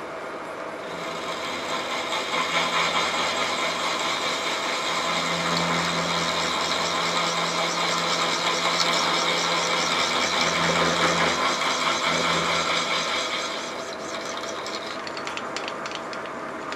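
Milling machine cutting the end of a small steel bicycle-frame bridge tube held in a vise: a steady cutting noise over the spindle motor's hum, starting about a second in and easing off near the end. A few light clicks follow as the cut stops.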